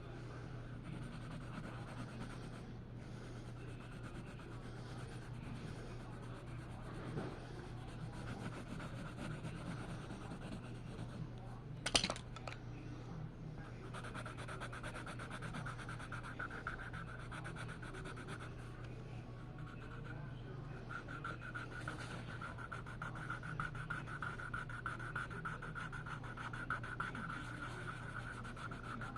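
Drawing tool scratching across paper in steady strokes, over a constant low hum, with one sharp click about twelve seconds in.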